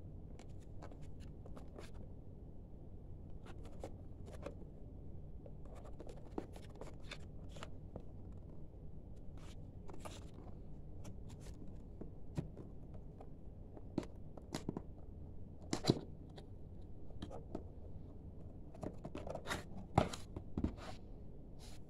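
A cardboard box of glass tumblers handled and opened by hand: scattered scrapes, rustles and light taps of fingers on the cardboard, with a sharper knock about two-thirds through and another near the end.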